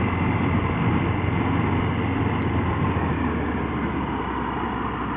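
Motorcycle engine running with wind noise, heard from the bike's onboard camera while riding; the level eases gradually towards the end.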